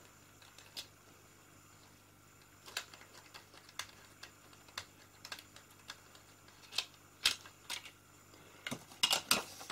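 Scattered small clicks and taps of plastic and metal parts as a cassette deck's drive mechanism is handled and turned over, with a quick cluster of clicks near the end. A faint steady low hum lies underneath.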